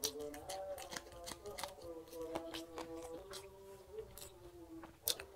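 Close-up eating sounds: wet mouth smacks and short clicks of chewing a mouthful of rice and fish curry, eaten by hand. The sharpest clicks come right at the start and again about five seconds in. Soft background music with held notes plays under them.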